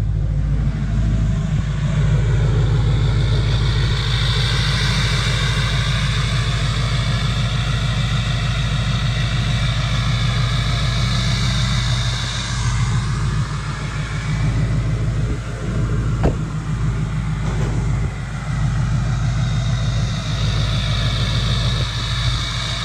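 LBZ Duramax 6.6-litre V8 turbodiesel idling steadily just after a successful cold start at about 10°F, having sat for over a month without the block heater plugged in. A low, even rumble, with a high whine that comes in about four seconds in, fades near the middle and returns near the end.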